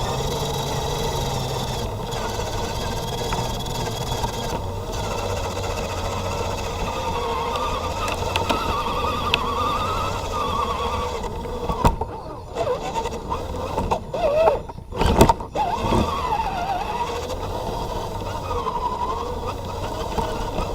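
Electric motor and gear drivetrain of a 1/10-scale RC 4x4 scale truck whining steadily, heard from a camera mounted on the truck, the pitch wavering as the throttle changes. A few sharp knocks and short dropouts come about two thirds of the way through.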